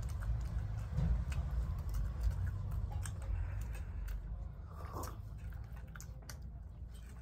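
Eating sounds from people eating momos: scattered small clicks and mouth noises of chewing over a low steady rumble.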